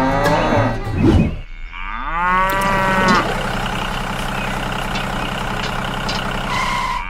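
A cow mooing once, a single drawn-out call starting about two seconds in, over a steady low mechanical hum. A short bit of music ends about a second in.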